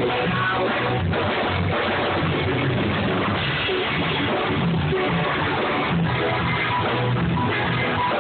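Rock music with strummed guitar and drums, a dull, low-quality recording with no treble.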